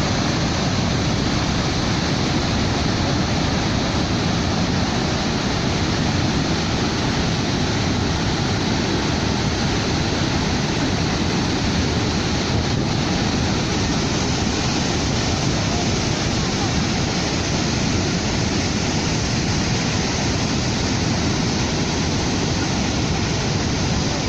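The Rhine Falls, a large waterfall, roaring steadily with no let-up.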